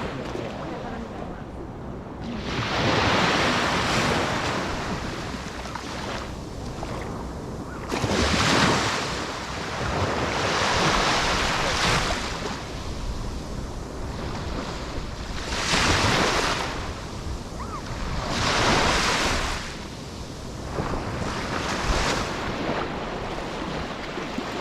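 Sea waves breaking and washing onto the shore, a surge of surf every three to four seconds, with wind rumbling on the microphone.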